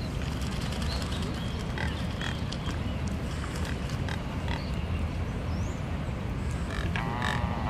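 Steady low rumble of outdoor background noise with scattered short clicks, and a brief pig-like grunting croak near the end, the typical call of Neotropic cormorants.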